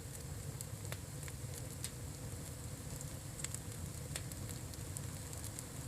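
Campfire burning, with irregular sharp crackles and pops from the burning wood over a steady low rumble.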